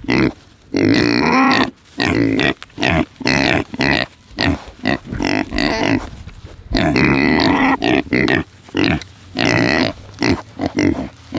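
Several pigs grunting close by in a rapid string of short calls, with a couple of longer, drawn-out calls about a second in and about seven seconds in.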